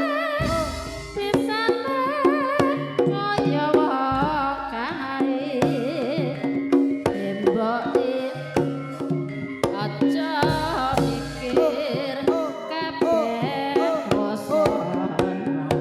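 Live Javanese campursari music: kendang hand drums keep a busy rhythm under a wavering, ornamented melody. Deep gong strokes sound three times.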